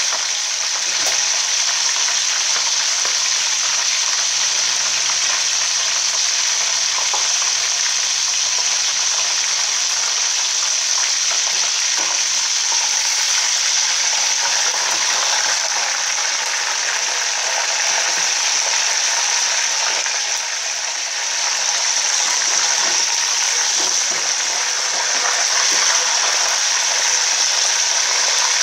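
Whole chicken frying in hot oil in a metal pot: a steady sizzle, with a few faint knocks as a metal utensil turns the bird against the pot.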